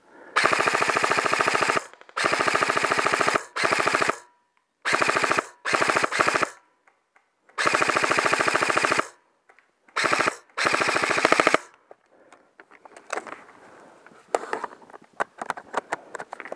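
Airsoft rifle firing in rapid full-auto bursts, about nine bursts of fast, even clicking, some over a second long, with short pauses between. After about 11.5 seconds the firing stops, leaving faint scattered clicks and rustling.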